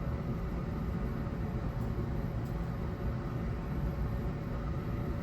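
Steady low running hum of a Cat skid steer heard from inside its cab while the machine is switched on.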